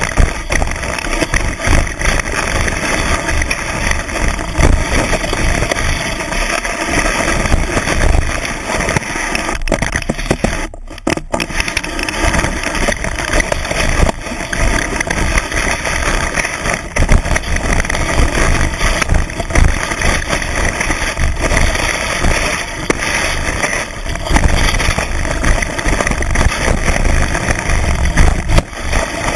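Skis running through deep powder snow, heard from a camera mounted on the ski: a steady, loud rushing with heavy low rumble and wind buffeting the microphone. The rushing cuts out briefly about eleven seconds in.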